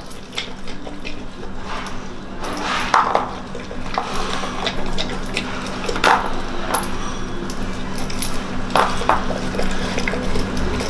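A pit bull lapping milk from a plastic bowl, its spiked metal collar clinking and jangling against the bowl in irregular clicks. A steady low hum runs underneath.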